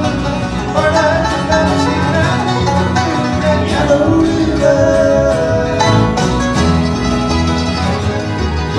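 Live bluegrass band playing: banjo, mandolin and acoustic guitar picking over an upright bass.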